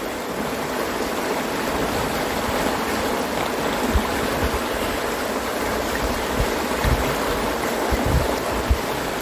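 River rapids rushing steadily, with scattered short low thumps on the microphone.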